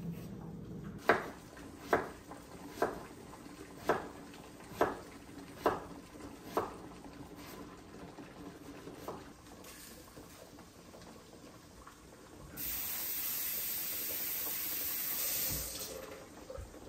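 A kitchen knife cutting potatoes on a wooden cutting board: sharp knocks about once a second, seven in a row and one more a couple of seconds later. Then a tap runs into the kitchen sink for about three seconds.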